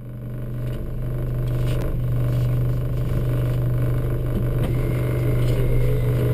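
Honda Civic VTi rally car's four-cylinder engine running steadily with the car standing still, heard inside the stripped cabin, with a few faint clicks.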